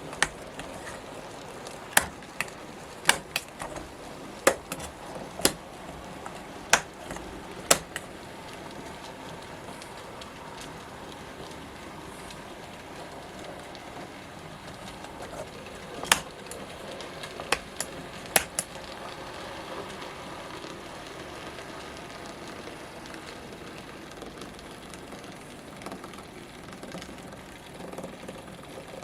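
N gauge model train running round the layout: a steady whirr of the motor and wheels on the track, with sharp metallic clicks, about six in the first eight seconds and four more a little past halfway.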